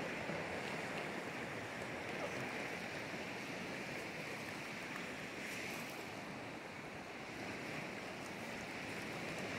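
Steady rush of sea surf breaking on the shore, an even hiss with no distinct waves standing out.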